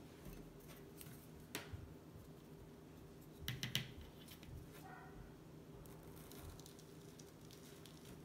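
Faint handling sounds of paper straws being dipped in melted chocolate and pushed into crispy rice treats on parchment paper: a few light clicks and crinkles, the loudest cluster about three and a half seconds in.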